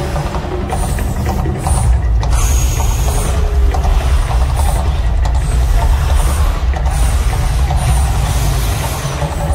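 Mirage volcano show effects: gas flame jets bursting up repeatedly with a whooshing rush that breaks off briefly several times, over a deep, steady rumble.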